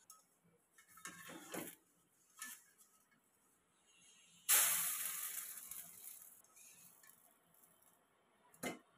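Metal spatula scraping the pan under a chitoi pitha and lifting it out, with a sudden loud hiss about halfway through that fades over some two seconds, and a sharp tap near the end.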